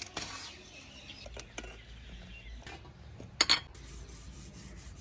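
Steel pots and dishes clinking while a soot-blackened metal pot is scrubbed by hand, with a few light knocks and one loud metal clank about three and a half seconds in.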